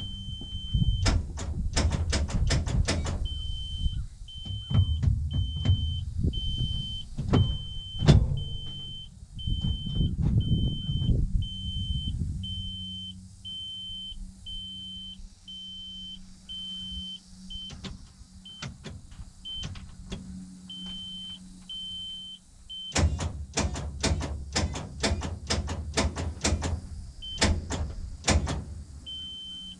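The R72's starter solenoid clicking rapidly as the starter motor strains without catching, in two long cranking attempts with a steady low hum between them, while a high warning beep sounds on and off. With a fully charged battery this points to a faulty starter or solenoid.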